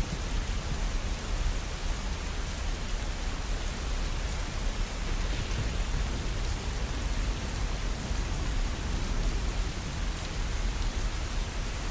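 Steady rain falling, an even hiss with a deep low rumble underneath.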